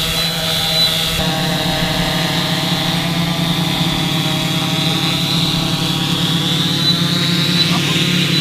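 Hoverfly LiveSky 6205 tethered multirotor drone's propellers humming steadily as it hovers and then settles onto its base station. The hum shifts abruptly about a second in.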